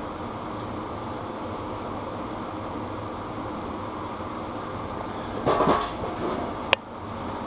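Steady mechanical hum throughout. About five and a half seconds in comes a brief metallic rattle, and a sharp click follows a second later, as the rear wheel is handled and fitted back into the bike.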